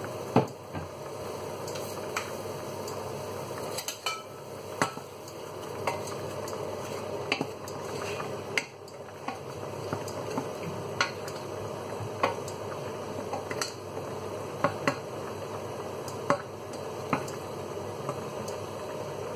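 Wooden spoon stirring diced tomatoes in a stainless steel saucepan, with irregular clicks and taps of the spoon against the pan over a steady cooking hiss.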